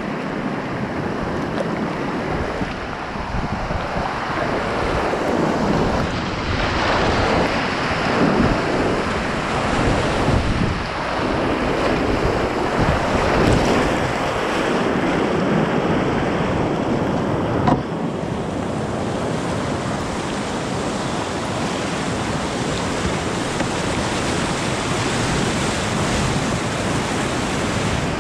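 Whitewater rapids rushing and splashing around a kayak running them, swelling in surges as waves break over the bow and camera. One sharp knock about halfway through.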